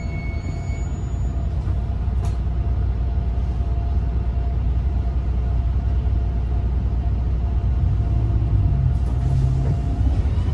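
Bus engine running with a steady low rumble that grows slightly louder, and a faint steady whine that stops near the end.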